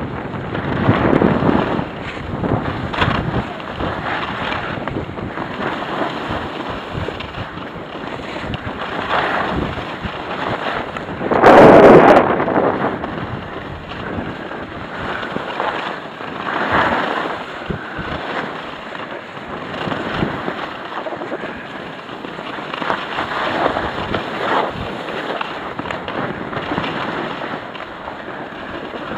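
Wind rushing over the microphone of a camera carried by a moving skier, mixed with the hiss of skis sliding on packed snow, swelling and fading every couple of seconds; one much louder gust about twelve seconds in.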